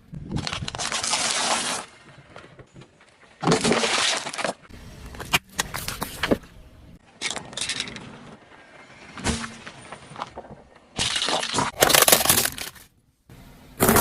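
A car tyre rolling over and crushing crunchy objects: several separate bursts of cracking and breaking, with short quieter gaps between.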